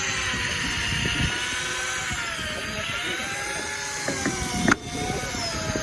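Electric fishing reel (Shimano ForceMaster 3000) winding in line with a hooked squid on, its motor whining with a pitch that slowly rises and falls as the load changes. A sharp knock comes near the end.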